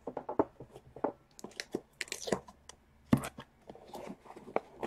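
Packing tape being pulled and torn from a cardboard shipping box, with irregular crackles and scrapes of the cardboard being handled.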